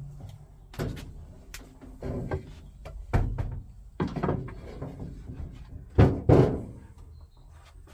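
A string of irregular knocks and thumps, the sound of metal parts and tools being handled and set down on a workbench, with the loudest pair of knocks about six seconds in.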